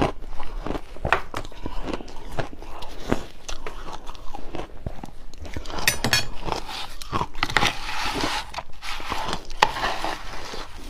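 Close-up crunching of refrozen shaved ice chunks being bitten and chewed, with repeated sharp cracks and crackles, denser in the second half.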